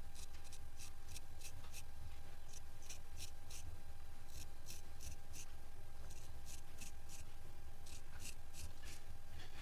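Straight razor scraping hair off a wet scalp in a head shave: short, scratchy strokes in quick runs of about four or five a second, with brief pauses between the runs.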